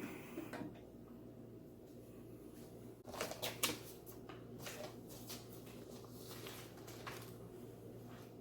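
Faint mechanical clicks and taps from a Heyday turntable being tried out, most likely its tonearm and auto start-stop mechanism, over a low steady hum. The loudest cluster of clicks comes about three seconds in, with a few lighter ones after.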